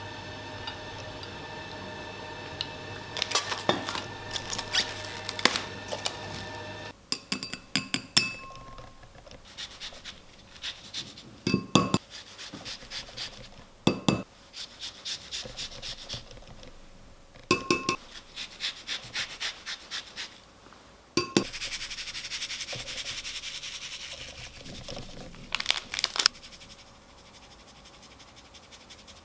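Kitchen prep handling: a glass bowl and small utensils clinking and tapping on the table in scattered sharp knocks, with about four seconds of steady rasping in the second half from a microplane zester grating citrus peel.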